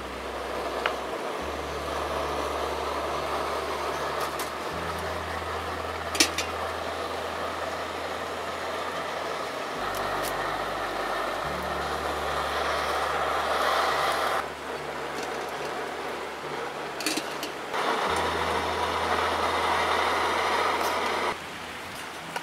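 Camping gas stove burner running with a steady hiss, cut off and resumed a couple of times, over a soft music bed of low sustained notes. A few light clicks of metal utensils or cookware.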